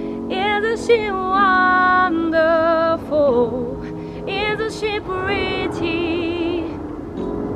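A woman singing, her voice sliding between notes with vibrato, over sustained chords on a Yamaha digital piano.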